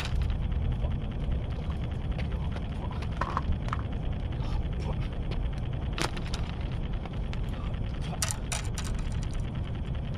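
Wind buffeting the microphone as a steady low rumble, with a few faint clicks about six seconds in and again near eight seconds.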